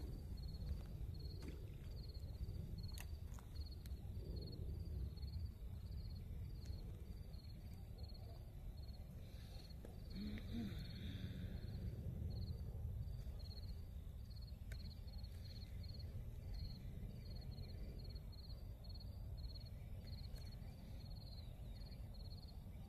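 A cricket chirping steadily, about two chirps a second, over a low, steady outdoor rumble.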